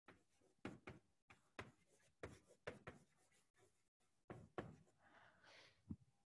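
Faint, irregular taps and short scratches of chalk writing on a chalkboard, over near silence.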